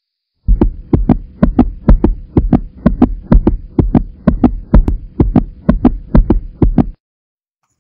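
Heartbeat sound effect: deep double thumps in a fast, even rhythm, a little over two beats a second, over a faint steady hum. It starts about half a second in and cuts off abruptly near the end.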